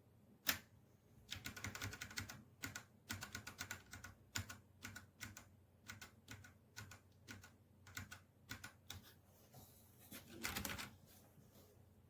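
Keys of a mechanical keyboard being typed on in irregular clicks, with a quick flurry of keystrokes about a second and a half in and a denser half-second burst near the end.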